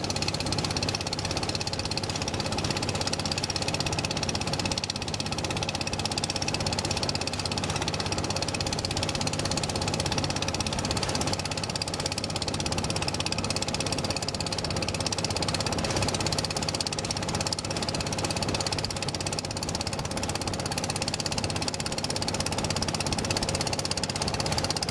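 Boat engine running steadily under way, with a fast, even knocking.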